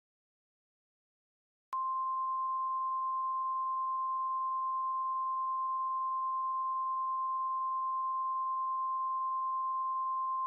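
NOAA Weather Radio warning alarm tone: a single steady beep-like tone that starts under two seconds in and holds without change for about nine seconds. It is the alert signal that announces a new warning message, here a tornado warning.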